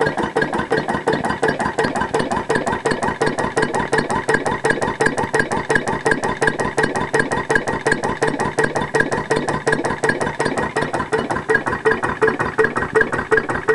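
Briggs & Stratton 4.5 HP lawnmower engine, converted to a two-stroke that runs on compressed gas fed through a computer-timed solenoid, running steadily with a regular exhaust chuff, about five or six a second.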